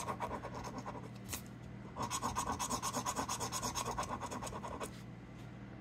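A coin scraping the coating off a paper scratch-off lottery ticket in quick back-and-forth strokes, about seven a second. The strokes come in two spells, with a short pause and a single click between them at about a second in, and stop about five seconds in.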